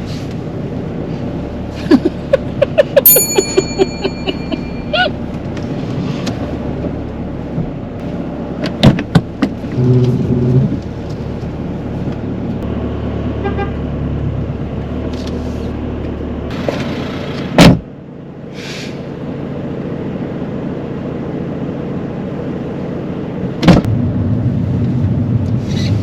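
Inside a moving car: a steady low engine and road hum, with scattered clicks and knocks and a brief electronic chime about three seconds in.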